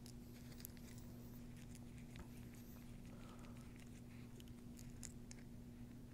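Near silence with faint, scattered small clicks and taps of metal pump parts being handled, unscrewed and set down on a padded mat, over a steady low electrical hum.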